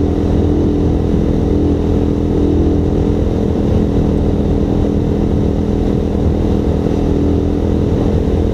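Suzuki motorcycle engine running at a steady cruise, its pitch holding level, with wind rushing over the action camera's microphone.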